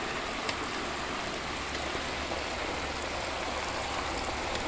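Turkey deep-frying in a pot of hot oil over a propane burner: a steady sizzling and bubbling. There is a light click about half a second in.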